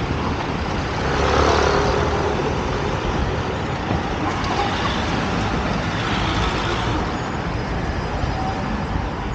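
City road traffic: a steady wash of passing motor vehicles, with one passing louder about a second in.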